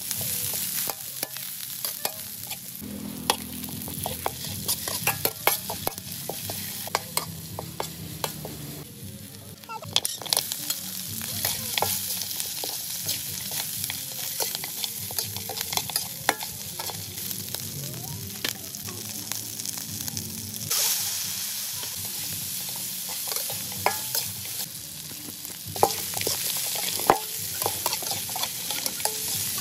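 Food frying in a hot pan: a steady sizzle with frequent clacks and scrapes of a spatula stirring it. The sizzle gets louder about ten seconds in.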